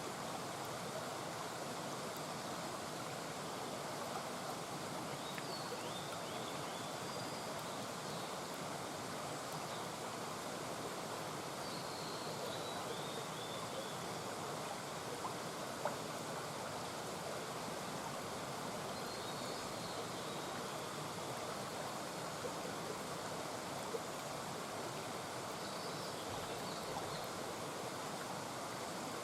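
Small mountain brook murmuring, shallow water running steadily over stones, with faint high chirps now and then.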